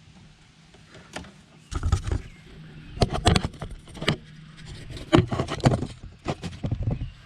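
Hands working in a pickup's engine bay: irregular knocks, clicks and scraping as vacuum-line connectors and a part are handled and taken off, getting busier about two seconds in.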